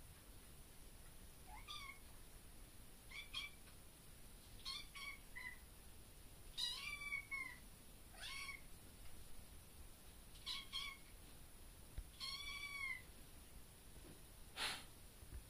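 Young kitten meowing again and again: about seven or eight short, high-pitched meows a second or two apart, several rising and falling in pitch. A short burst of noise near the end.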